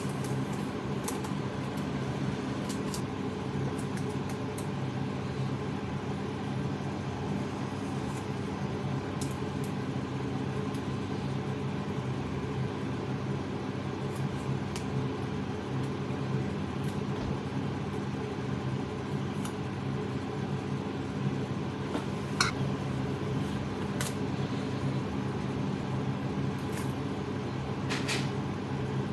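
Steady mechanical hum throughout, with a few short light clicks, the clearest near the end.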